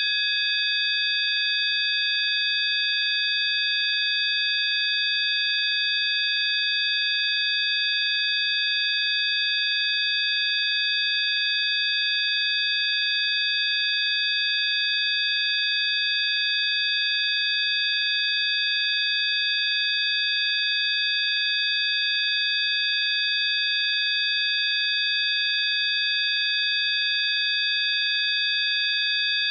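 Several steady, high-pitched sine tones sounding together and held unchanging: a synthesized healing-frequency tone.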